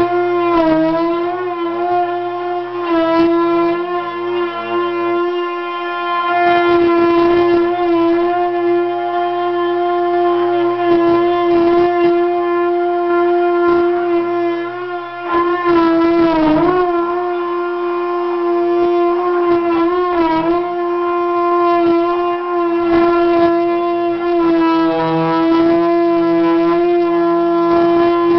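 High-speed electric rotary cutting tool running steadily with a high whine, its pitch sagging briefly several times as it bites into the fuselage skin being trimmed.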